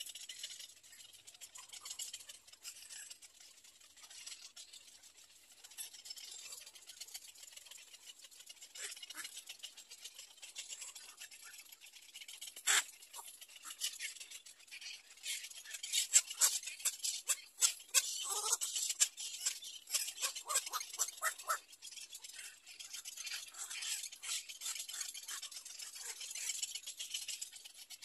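Little egret chicks in the nest making a dry, rapid ticking chatter, with a run of louder, sharper clicks a little past the middle.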